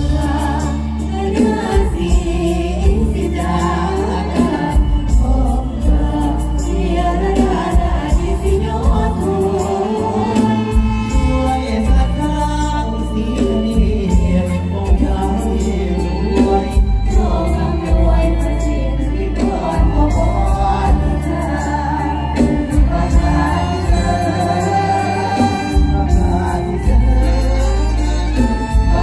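Loud stage-show music from a mor lam troupe's performance: singing with a choir-like chorus over a steady, heavy bass.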